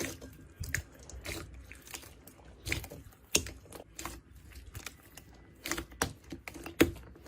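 Slime being squeezed and pressed by hand, making irregular sticky clicks and little crackling pops.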